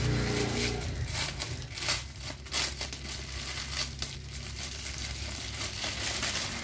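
Plastic shipping mailer crinkling and crackling in a series of short, irregular rustles as hands grip it and work scissors into the plastic.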